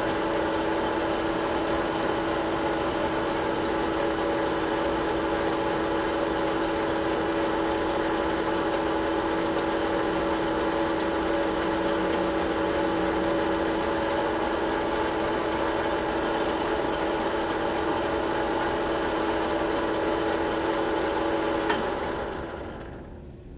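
Metal lathe running with a steady hum of several fixed tones while a boring bar cuts the bolt-nose recess in a Remington 700 barrel tenon. Near the end there is a click and the lathe is switched off, its hum dying away as the chuck spins down.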